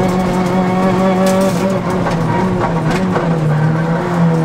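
Honda Civic Type-R's four-cylinder engine heard from inside the cabin, running hard at high revs. The note steps down in pitch about two seconds in and again around three seconds in, with a few brief clicks over it.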